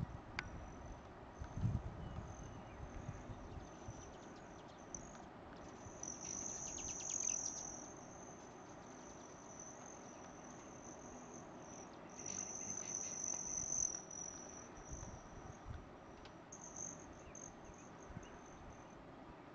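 High-pitched buzzing trill of hummingbirds' wings as the birds hover and fly about a feeder, coming and going in short breaks and growing louder twice, about six seconds in and again about twelve seconds in, as birds pass close.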